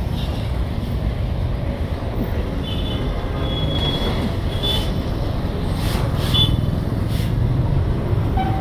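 Heavy container truck passing slowly alongside, its diesel engine giving a steady low rumble over the surrounding street traffic. A few short high-pitched squeaks come through in the middle.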